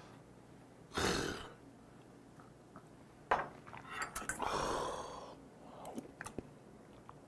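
Mukbang eating sounds: a short breathy exhale about a second in, a clink of a utensil against the stainless-steel bowl, then a long slurp of crab ramyeon noodles, with small chewing clicks near the end.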